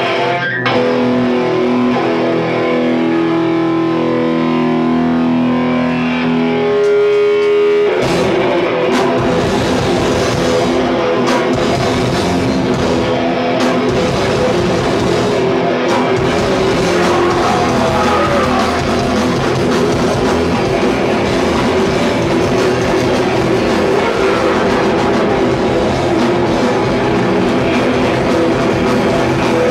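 Hardcore band playing loud distorted rock live: held guitar notes ring for about eight seconds, then the whole band crashes in at once with drums and heavy guitars and keeps playing fast and dense.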